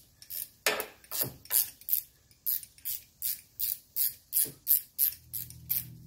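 Hand ratchet wrench clicking in short repeated strokes, about three a second, as a bolt at the air-conditioning compressor is worked loose.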